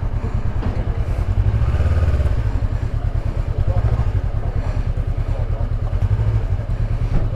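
Motorcycle engine idling, a steady low rapid pulse that swells slightly a couple of times.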